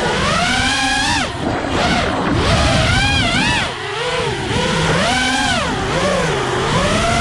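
FPV racing quadcopter's four Hypetrain 2306 2450kv brushless motors spinning 5-inch HQ 5048 propellers, their whine rising and falling over and over with the throttle, with a deep dip about four seconds in and a climb near the end.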